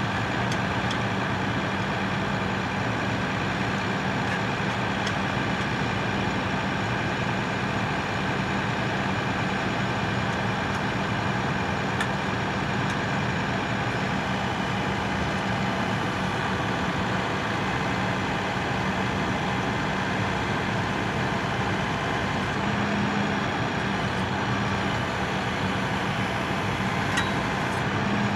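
A heavy engine idling steadily, a constant drone with an even hum.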